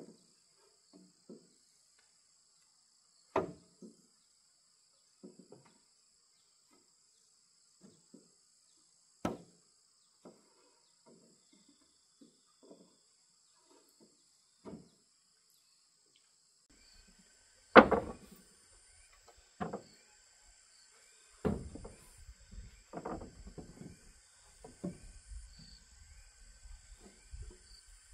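Scattered wooden knocks and thuds as roof boards are handled and fitted on a log cabin's pole roof frame, growing busier in the last third, with the loudest knock about two-thirds of the way in. A steady high insect drone runs underneath.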